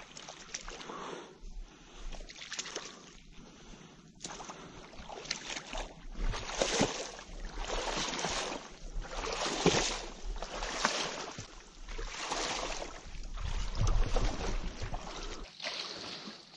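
Water sloshing and splashing around a wooden dugout canoe in shallow water, in repeated swells about once a second that grow louder about five seconds in.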